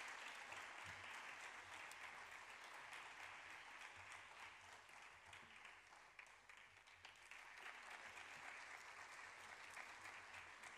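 Audience applauding, faint and steady, with many small claps blending into a crackle that eases slightly about six seconds in.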